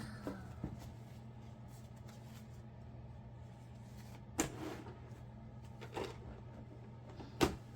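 Toy packaging being handled and closed up: a few scattered knocks and clicks, the sharpest near the end, over a steady low hum.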